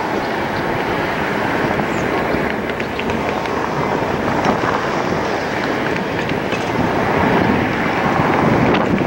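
EMD GP38-2 diesel-electric locomotive running as it slowly moves a loaded gondola along the track: a steady, dense engine and rolling noise with scattered faint clicks.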